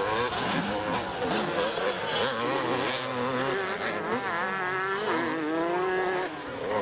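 Two-stroke motocross motorcycle engines revving hard, their pitch rising and falling quickly as the throttle is worked.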